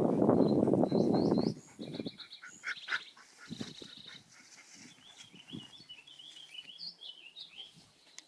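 Songbirds singing: quick chirps, a fast trill, then a run of short whistled notes. A loud low noise covers the first second and a half.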